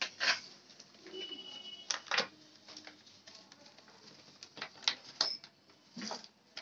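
Hard plastic parts of a baby walker being handled and fitted: scattered sharp clicks and knocks, about half a dozen.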